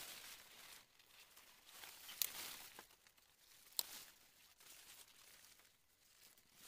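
Faint rustling of grass stalks and leaves being gathered and handled by hand, with two sharp clicks, about two seconds and four seconds in.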